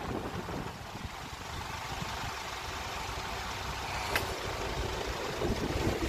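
Steady low rumble of motor vehicles idling at the closed crossing, with wind on the microphone, slowly growing louder; a single sharp click about four seconds in.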